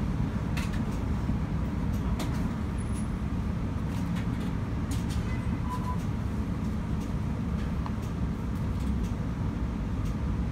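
Steady low rumble inside a running Melbourne tram, with a few faint clicks and rattles.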